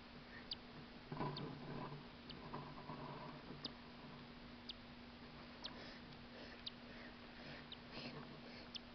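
Newly hatched cockatiel chick giving faint, brief high peeps, roughly one a second, over a steady low hum.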